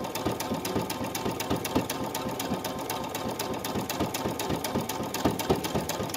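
Brother Innov-is V5 sewing machine running steadily, its needle stitching through fleece in a fast, even rhythm.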